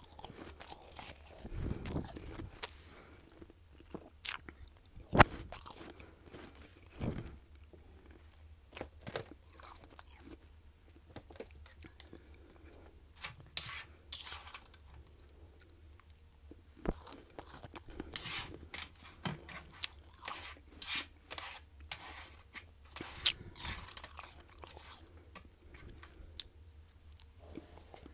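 Close-up bites and chewing of crunchy freezer frost: many irregular sharp crunches, some louder bites standing out, with quieter chewing in between.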